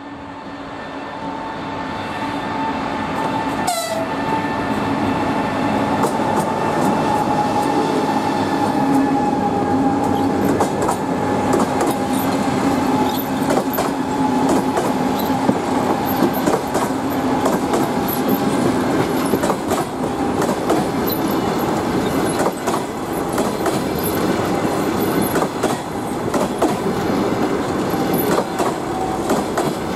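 EP20 electric locomotive and its passenger coaches rolling in slowly while braking to a stop. A steady whine sinks slowly in pitch as the train slows, over the clatter of wheels across rail joints. It grows louder over the first few seconds as the locomotive nears, and the wheel clicks come thicker as the coaches pass.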